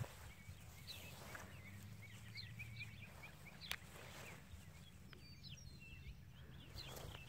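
Faint outdoor ambience: many short, high chirps scattered through, over puppies' soft rustling in grass. One sharp click about three and a half seconds in.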